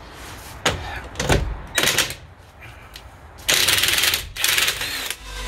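Cordless impact wrench loosening the wheel nuts on a car's front wheel: two short bursts of rapid hammering rattle a little over halfway in, after a few short knocks.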